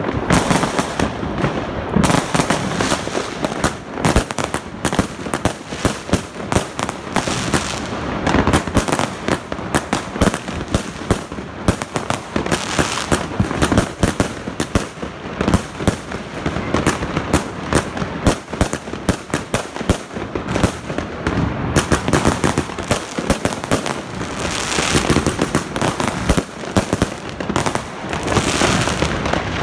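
Zena 144-shot fireworks cake firing, one shot after another in rapid succession: a continuous run of launch thumps and aerial bursts.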